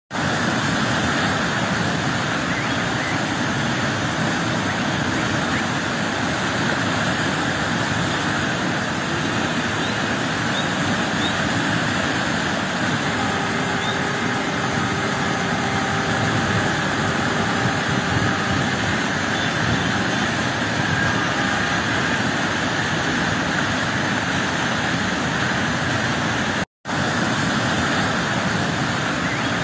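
Small mountain waterfall and stream rushing steadily over boulders, a loud, even roar of water. The sound cuts out for an instant near the end.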